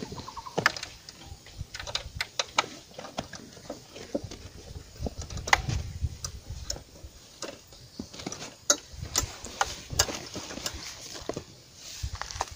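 A run of irregular light clicks and knocks, with a few heavier low thuds around the middle.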